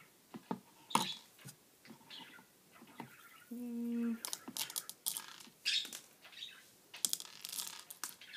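Small clicks, taps and rattles of hands handling craft supplies on a tabletop: a plastic glue stick set down and seed beads being handled, the sharpest knock about a second in and a busier patch of ticks in the second half. A short steady hum-like tone sounds about halfway through.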